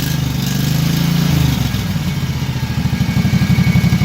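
Kawasaki FH-series V-twin mower engine briefly revved up and dropped back to idle, then idling with an even, regular beat. Its idle mixture screw has just been turned out to cure a rough idle, so it now runs smoothly on both cylinders.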